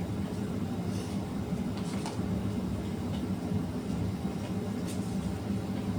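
Steady low rumble with a few faint, brief clicks.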